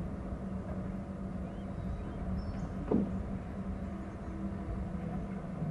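Steady low rumble with a steady hum, a single knock about three seconds in, and a few faint, short, high chirps.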